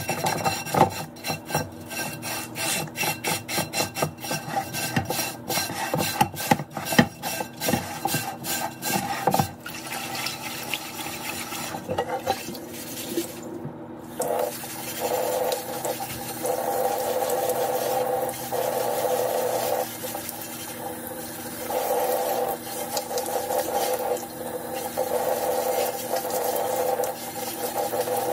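A scrubber rubbing over an unglazed clay pan lid in rapid back-and-forth strokes. About halfway through, the tap water runs over the clay pan into a stainless steel sink, cutting in and out a few times as the pan is rinsed.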